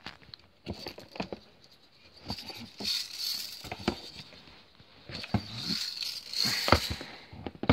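Handling noise from a Daisy Red Ryder BB rifle being lifted and moved in its cardboard box: scattered knocks and clicks, with two spells of scraping and rustling.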